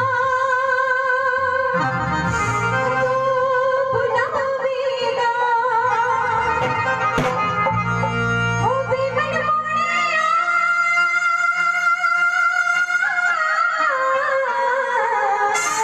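Music: a wavering, sliding melody line over a low bass, with the melody gliding downward near the end.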